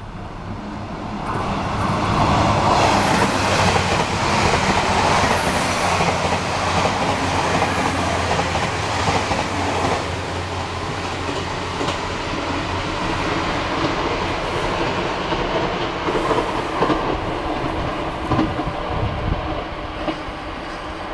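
Train running on rails: a loud, steady rushing rumble of wheels and track that swells about a second in, with scattered clicks.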